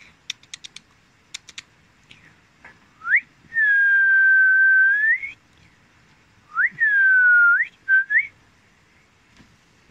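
A person whistling to a puppy in three calls: an upward swoop into a long held note, then a note that dips and sweeps sharply upward, then a short rising chirp. A few soft clicks come just before the whistles.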